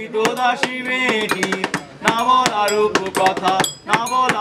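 Voices singing a song together over hands drumming on a wooden table as a makeshift tabla, with quick sharp knocks several times a second; the singing breaks off briefly a little before the end.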